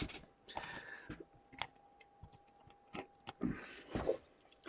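Trading card packs being handled and opened: wrapper rustling and tearing in two short stretches, with scattered clicks and taps from cards and packaging.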